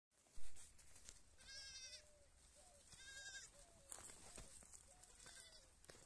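Goats bleating: three short, high, quavering bleats, with fainter, lower calls between them. A sharp knock sounds just after the start and is the loudest thing.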